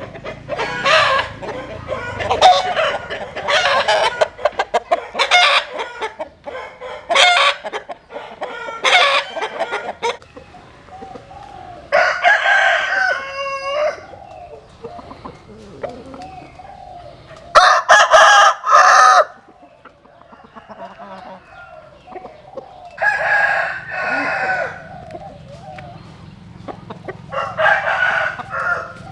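Chickens making a rapid run of short clucking calls, then roosters crowing four times, each crow drawn out over one to two seconds. The crow about eighteen seconds in is the loudest.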